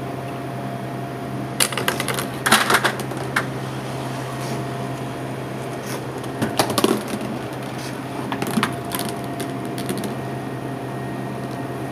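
Steel ball clattering through a wooden Rube Goldberg machine: three clusters of knocks and rattles, about a second and a half in, around six and a half seconds, and near the end, over a steady hum.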